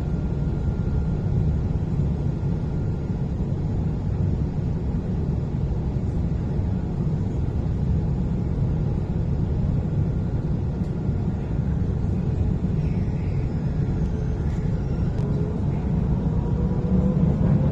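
Dubai Tram running along its tracks, heard from inside the cabin: a steady low rumble, with a faint whine rising in pitch in the last few seconds.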